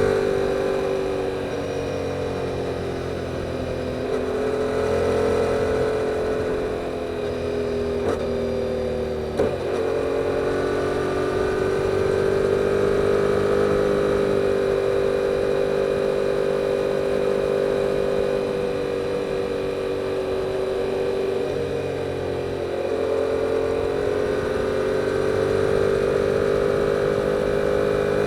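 2022 Yamaha R7's 689 cc parallel-twin engine through its stock exhaust, running steadily while riding, its pitch drifting gently up and down with small changes in throttle. Two short sharp clicks come about eight and nine and a half seconds in.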